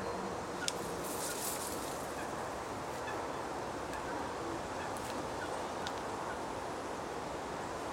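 Lakeside ambience: a steady outdoor hush with faint calls of distant waterfowl. A sharp click comes just under a second in, and a short rustle follows soon after.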